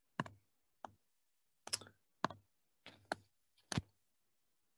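Quiet, short, sharp clicks, about seven of them at irregular spacing. They come from a computer pen or pointer input as red strike-through lines are drawn over text.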